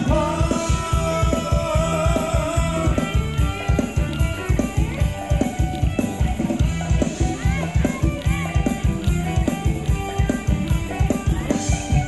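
Live Thai ramwong band music with a steady fast drum beat under a melody line.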